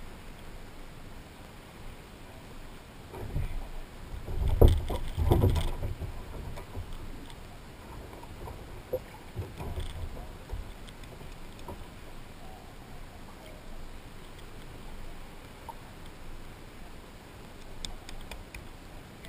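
Steady hiss of water and air around a small plastic kayak, broken a few seconds in by a cluster of heavy bumps and knocks against the hull, with a few lighter knocks and faint clicks later.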